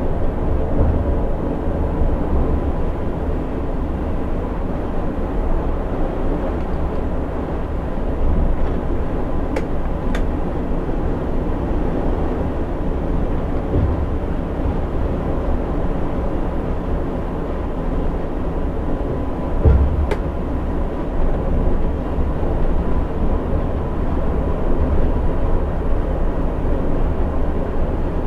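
Steady drone of a coach's engine and tyres at highway cruising speed, heard from inside the driver's cab, heaviest in the low rumble, with a faint steady whine. A brief thump about twenty seconds in and a few faint clicks.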